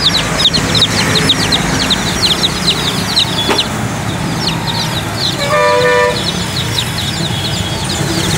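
A crowd of young chicks peeping constantly, many short high downward-sliding cheeps in quick succession over a low traffic rumble. About five and a half seconds in, a vehicle horn sounds once for about half a second.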